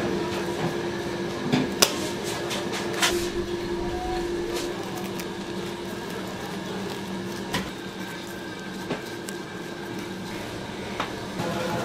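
Bakery work-room background: a steady machine hum that drops away about halfway through, with scattered light clicks and knocks.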